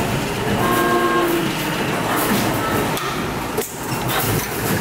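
Factory machinery running: a loud, steady mechanical din with a fast clatter, and a brief steady whine about a second in.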